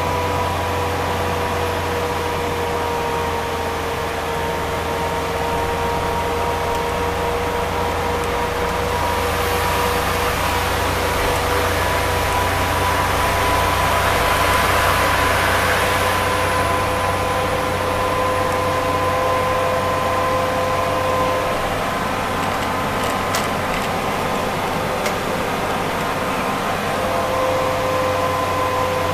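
Steady engine and road noise heard from inside a moving vehicle on a highway: a constant low drone with a steady whine over it. A broad rush of noise swells and fades around the middle.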